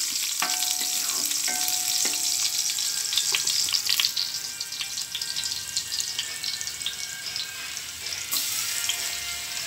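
Pounded garlic frying in hot cooking oil in a pot: a dense crackling sizzle with a wooden spatula scraping through it at the start. The sizzle grows quieter toward the end.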